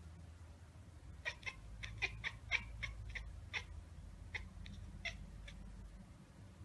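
Long-haired cat chattering: quick, clipped 'ek-ek-ek' clicks, about four to five a second in a run through the first half, then a few slower, spaced-out ones. This is the chatter cats make when watching a bird or other prey they cannot reach.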